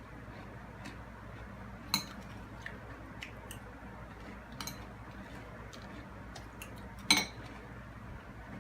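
Spoon clinking against a cereal bowl during eating, with two sharp clinks about two seconds in and near the end and several softer taps between.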